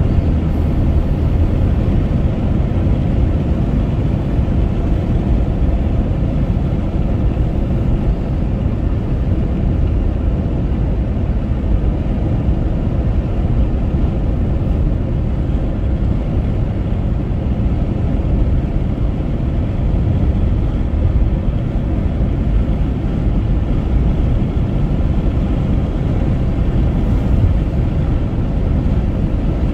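Steady road and wind noise of a car driving on a highway, a loud, even low rumble without breaks.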